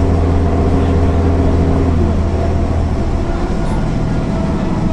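MAN NL 262 city bus's six-cylinder diesel engine running under way; its pitch drops about two seconds in as the revs fall.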